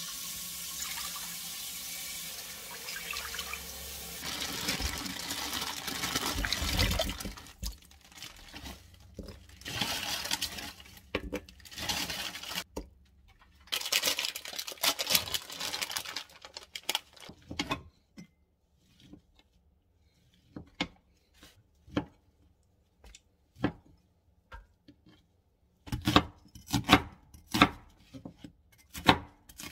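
Water running from a kitchen tap for the first several seconds, then scattered knocks and clatter of kitchen things and a wooden cutting board being handled. Near the end, a cleaver slices an onion on a wooden cutting board, knocking on the board in quick succession.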